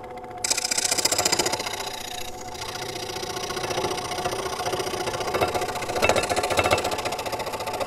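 Scroll saw running, its blade stroking rapidly up and down as it cuts through thin wood; the sound comes in suddenly about half a second in.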